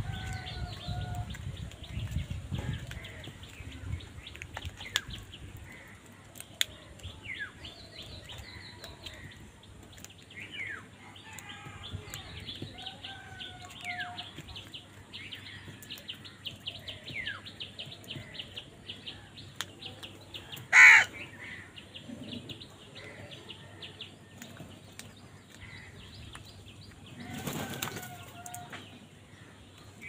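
House crows and a common myna around a bowl of rice: scattered short bird calls and chirps, with wingbeats as birds flutter in and out. One loud sudden burst comes about two-thirds of the way through, and a shorter rustle a little before the end.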